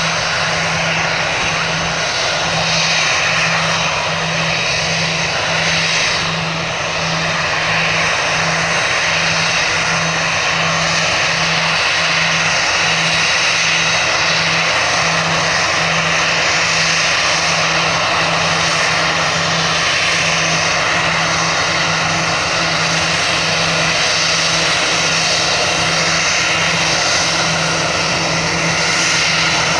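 Airbus A320's CFM56 turbofan engines running at taxi power as the airliner taxis past: a steady jet whine and rush, with a low hum pulsing about twice a second underneath.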